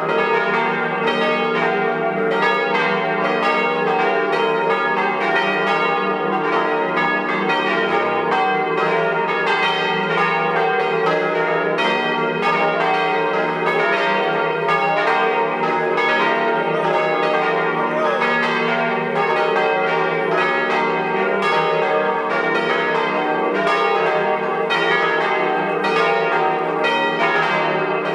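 Church bells swung 'a slancio' (the Italian swinging style), a ring tuned to a diatonic scale on E-flat, pealing together in a steady stream of overlapping strokes with the tones ringing on between them.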